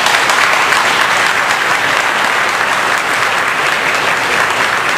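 Audience applauding: steady clapping from many people that holds throughout.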